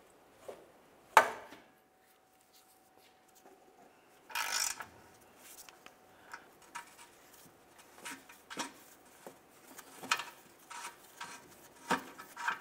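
Downstream O2 sensor being unscrewed from a catalytic converter with a ratchet and O2 sensor socket. A single sharp crack about a second in, as the seized threads break loose. A short scraping rasp a few seconds later, then scattered light metallic clicks and rubbing as the socket and sensor are turned out by hand.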